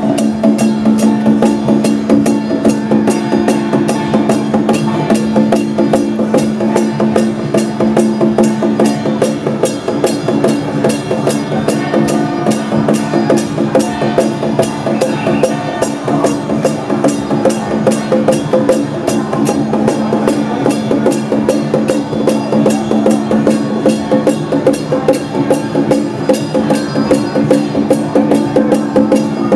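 Loud temple-festival music: a fast, unbroken beat of drums and clacking percussion over steady held tones that do not change.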